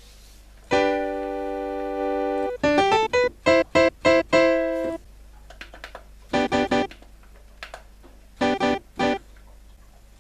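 Korg 01/W FD synthesizer being played on its initialized default patch. A held note comes in about a second in, then a quick run of short notes, then two more short clusters of notes. The plain init sound is heard because the stored voices were wiped when the memory battery was replaced.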